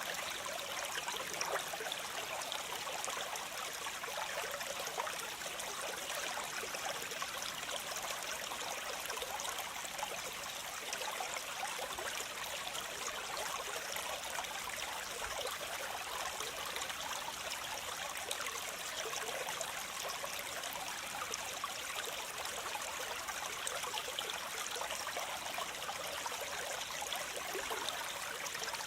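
Waterfall cascading in a steady, unbroken rush of splashing water, mostly a bright hiss with little low rumble.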